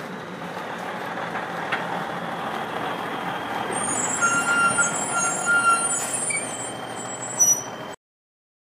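Heavy truck coming closer, its engine and tyre noise growing louder, with high-pitched squeals of its brakes from about four seconds in. The sound cuts off suddenly near the end.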